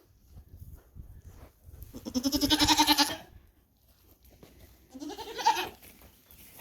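Nigerian Dwarf goats bleating: one loud, quavering bleat about two seconds in, lasting about a second, and a shorter, quieter bleat about five seconds in.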